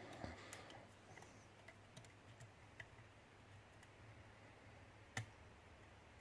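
Faint, scattered metallic clicks of a lock pick probing the pins inside a pin-tumbler challenge lock, with one sharper click about five seconds in.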